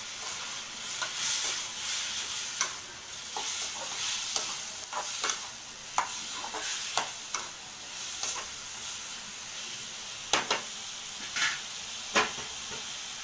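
Tomatoes and onions sizzling in oil in a metal kadai while a metal spoon stirs them, scraping and clicking against the pan; the sharpest clicks come near the end. The masala is frying with turmeric and chilli powder just added.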